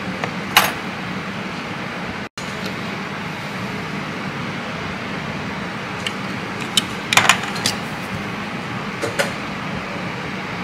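Steady hiss with a low hum from a soldering workbench, with a few light clicks of soldering tools on a circuit board, clustered around seven seconds in, as pads are tinned with a soldering iron.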